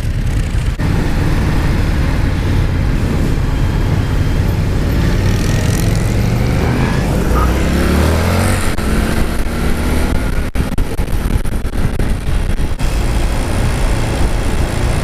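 Indian FTR 1200's 1203cc V-twin running under way with an Akrapovič aftermarket exhaust, heard from the rider's seat, mixed with steady wind rush over the microphone.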